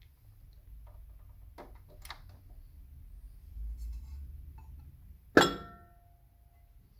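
Turntable running with a steady low grinding rumble, broken by a few light knocks and one loud clink with a short ringing about five seconds in.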